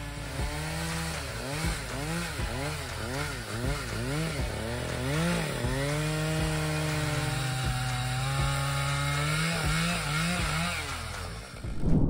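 Chainsaw in a chainsaw mill ripping an oak log lengthwise. The engine pitch swings up and down under two times a second for the first few seconds as the saw is worked through the cut, then holds steadier under load.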